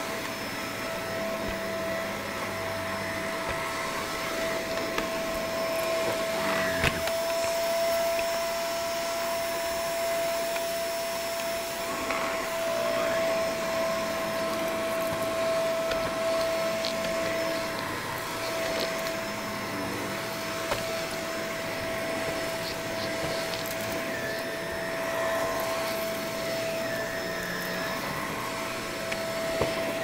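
Bissell MultiClean upright vacuum running steadily with a constant motor whine as it is pushed back and forth over carpet and a rug. A few sharp clicks and crunches come through as it picks up debris, the loudest about seven seconds in.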